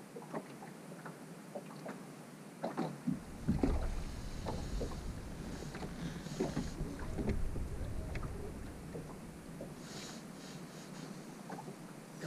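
Small waves lapping and knocking irregularly against a bass boat's hull. A low rumble comes in about three seconds in and fades out near the end.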